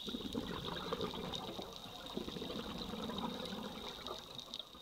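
Underwater ambience of a dive: irregular bubbling and gurgling water with scattered faint clicks, and a steady high-pitched whine that stops just after the end.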